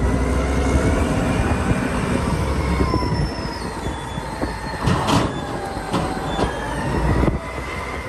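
A Caterpillar 992C wheel loader working, with a heavy engine rumble and thin high squeals that drift slowly in pitch. About five seconds in there is a loud rush as the raised bucket tips its load into the truck.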